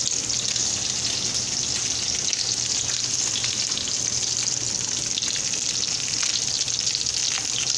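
Sliced potatoes and cucumbers frying in oil in skillets on a stovetop: a steady sizzling hiss with scattered small crackles.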